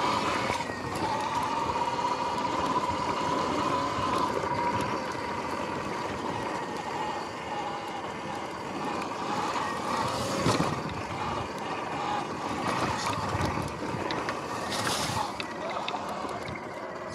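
Electric dirt bike's motor whining steadily as it rides over grass, with tyre and wind noise. There are two brief louder rushes of noise, about ten and fifteen seconds in.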